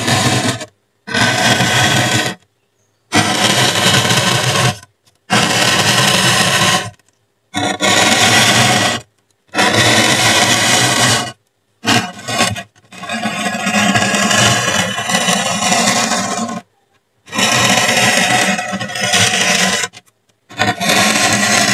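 Metal tip of a pen-like tool dragged through polystyrene foam board, giving scratchy, squeaky rubbing strokes. There are about ten separate strokes, most a second or two long and one of about four seconds, each cut off by a short silence.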